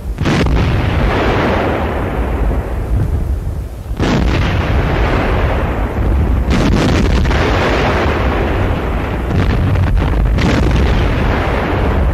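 Heavy artillery firing and shells exploding: four sudden heavy blasts, each trailing off in a long rumble.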